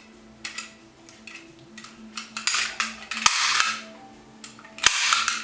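Arrow T50 heavy-duty staple gun being worked by hand to clear a jammed staple: small metal clicks and rattles, then two sharp metallic snaps, about three and five seconds in. Each snap is followed by about a second of rasping noise.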